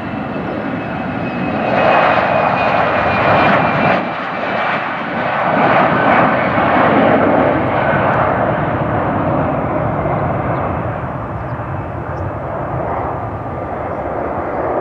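A twin-engine business jet with tail-mounted turbofans at takeoff power during its takeoff roll and climb-out. The jet noise, with a faint high whine, swells about two seconds in, stays loud for several seconds, then slowly fades as the jet climbs away.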